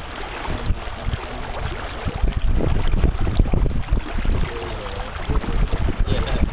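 Wind buffeting the microphone: a loud, uneven low rumble that gusts up and down.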